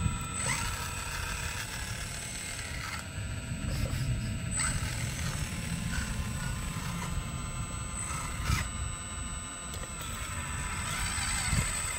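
Scale RC Volvo crawler excavator working as it digs: a steady high motor whine from its drive, which dips and shifts as the boom and arm move, over a low rumble. A couple of short knocks near the end, typical of the bucket meeting the ground.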